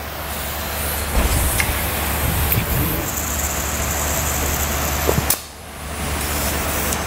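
Compressed air hissing through an air chuck into an inflation valve, filling a Firestone Ride-Rite Red Label air helper spring to check it for leaks. The hiss stops briefly about five seconds in, then starts again.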